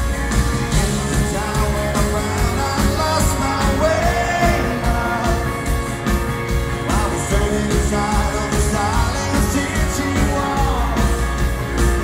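Live rock band playing, with a male lead vocal sung over electric guitar, bass and drums, recorded from the audience.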